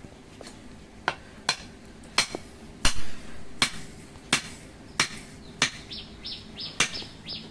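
Sharp knocks, about three every two seconds, as the red-hot tang of a hand-forged chhol-dao is driven into its wooden handle, burning its way in; one knock about three seconds in is louder than the rest.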